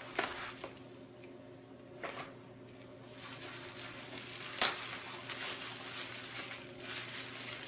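Quiet handling of protective packaging: soft rustles and a few light clicks, the sharpest about halfway through, over a steady low hum.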